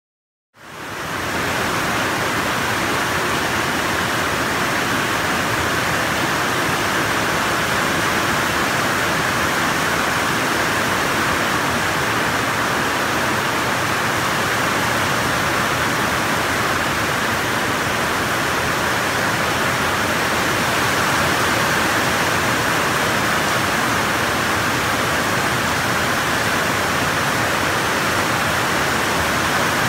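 Heavy rain pouring down steadily, with runoff water streaming off a roof edge and down a concrete wall. It fades in about half a second in.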